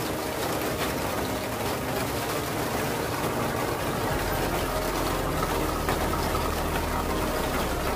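Heavy rain pouring, with a vehicle engine running underneath; a low engine hum becomes steadier about halfway through.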